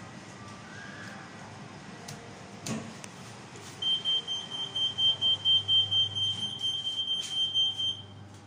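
Toshiba lift's door-closing warning beeper sounding a high, rapid beeping, about four beeps a second for about four seconds while the doors close. A single click comes before it, near the three-second mark.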